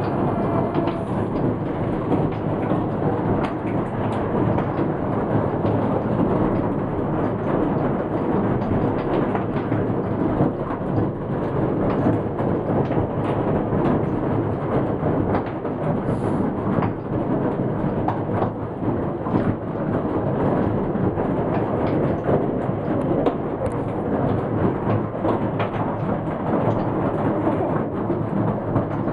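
Heavy hail falling without let-up, a dense steady clatter of countless small impacts over a rain-like hiss.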